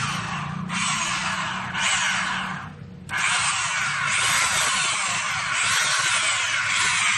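Sandpaper rubbing over a powder-coated finish in rasping back-and-forth strokes, each about a second long with brief breaks. From about three seconds in it becomes one longer continuous stretch of rubbing.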